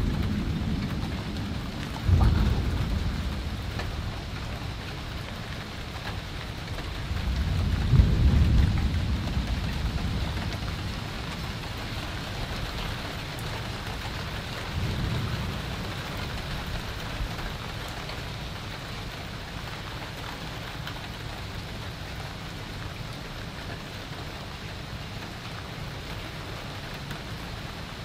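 Thunderstorm with heavy rain falling steadily. A sudden clap of thunder about two seconds in rolls off into a rumble. A louder rumble builds to a peak about eight seconds in, and a weaker one follows near fifteen seconds, after which only the rain is heard.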